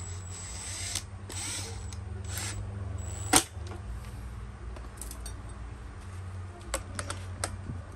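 Cordless electric screwdriver running in short whirring bursts as it backs out the steel muffler screws of a two-stroke brush cutter. There is one sharp metallic click a little over three seconds in and a few light clicks near the end.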